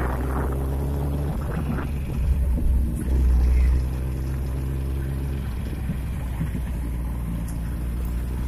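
Motorcycle engines running while riding along a street: a steady low drone, with louder low rumbles about two and three seconds in.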